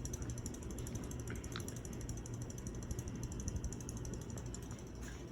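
A 1996 Hunter Millennium 52-inch ceiling fan running on high: a steady low motor hum with a fast, even ticking over it.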